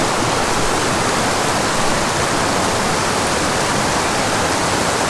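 A small, steep mountain creek rushing and splashing over rocks in little cascades: a steady, unbroken rush of water close by.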